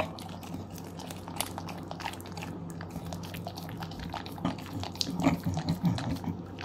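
English bulldog licking and eating pumpkin puree off a metal spoon: a run of wet lip smacks and slurping licks, busier and louder near the end.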